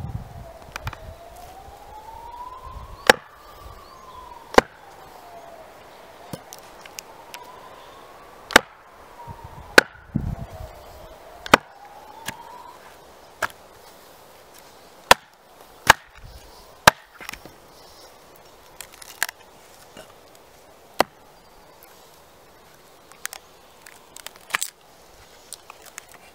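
A small carving axe splitting a short log on a tree stump: about a dozen sharp wooden knocks and cracks, one to two seconds apart and irregular, as the axe and log are struck down onto the stump. Through the first half a distant siren wails slowly up and down in the background.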